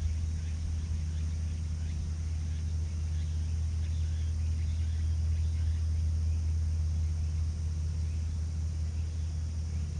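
Steady low rumble of strong wind on the microphone, with faint light rustling above it.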